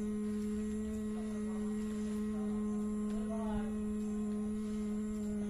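Steady electrical hum: a low constant tone with a fainter higher one above it, with a faint voice briefly in the middle.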